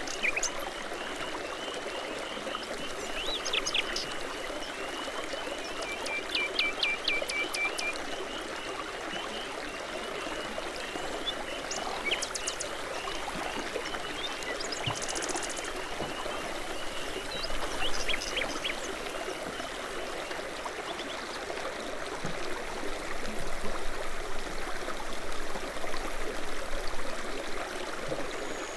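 Babbling brook flowing steadily, with songbirds chirping and singing over it in short, high calls throughout.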